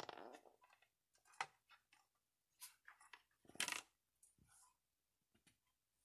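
A clear plastic soda bottle being handled: light crackles and taps of the plastic under the fingers, with a dry stalk inside rubbing against it. There is a louder rustle at the start and another about three and a half seconds in.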